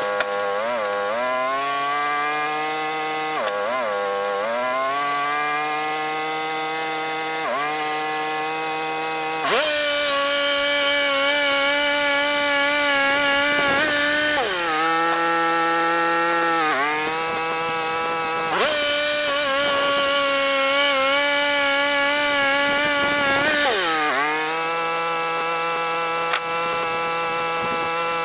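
Gas-powered saw running at high speed while cutting pine into boards. Its pitch sags each time the cut loads the engine and then recovers, several times over.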